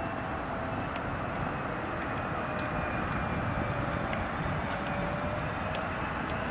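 Boeing 777-300ER on final approach, its two GE90 turbofans giving a steady jet rumble with a faint whine that dips slightly in pitch and rises again.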